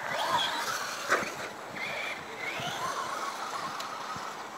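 Electric motor of a radio-controlled Traxxas Slash truck whining, its pitch rising and falling as it speeds up and slows, over tyre noise on the ground, with a sharp knock about a second in.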